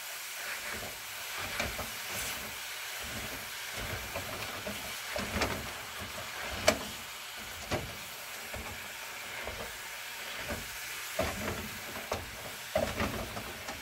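Hamburger meat and vegetables sizzling in a skillet while a plastic meat chopper is worked through the meat, scraping and knocking against the pan at irregular moments, with one sharper knock about seven seconds in.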